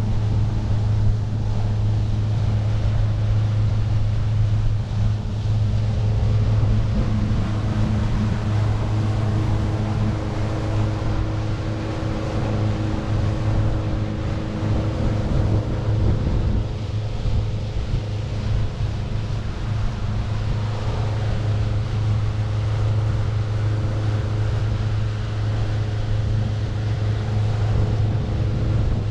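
Small passenger motorboat's engine running at a steady speed while underway: a constant, even drone. Wind and water noise rush along under it.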